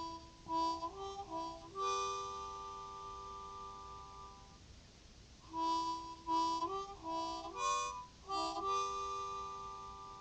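Music with a harmonica: quick chord phrases followed by a long held chord that fades, then a second round of short phrases and another held chord near the end.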